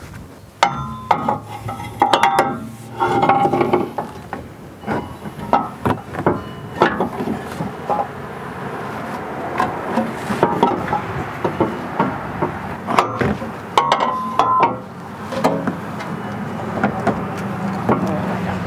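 Repeated knocks, clanks and rubbing as an aftermarket exhaust muffler is worked into place under the car and its steel hanger rods are pushed through oiled rubber hanger isolators, a few knocks ringing briefly like metal. A steady low hum comes in near the end.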